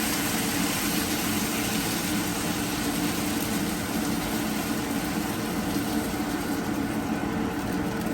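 Steady hiss of food frying in a pan over a lit stove burner, with a low rumble under it. The high hiss thins a little near the end.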